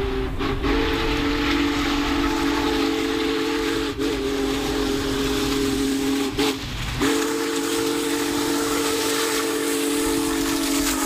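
Union Pacific Big Boy 4014's steam chime whistle sounding a chord of several notes at once, held in long blasts with three short breaks, over the steady rumble of the steam train running past.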